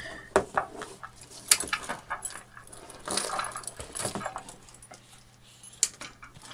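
A cardboard tablet box being handled and opened, with scattered scrapes, taps and rustles and a light jingle of keys held in the hand, over a faint steady low hum.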